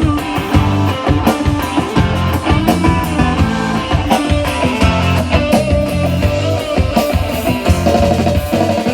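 Live rock band playing an instrumental passage: electric guitar over bass and drum kit, without vocals.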